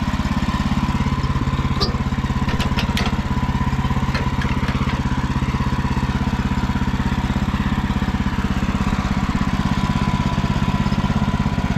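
An engine idling steadily, with a few light knocks about two to three seconds in and again near four seconds as sawn oak boards are flipped over.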